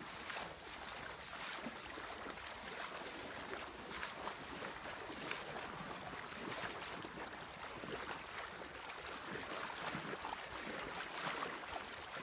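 Shallow river water splashing and swishing around a person's legs as they wade through it in waders, with irregular steps.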